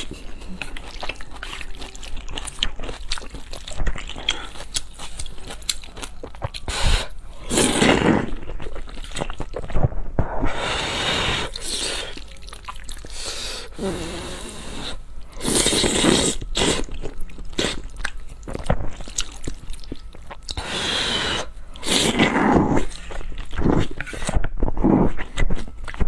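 Close-miked slurping of wide noodles in black bean sauce: several long, wet slurps a few seconds apart, with chewing and lip-smacking between them.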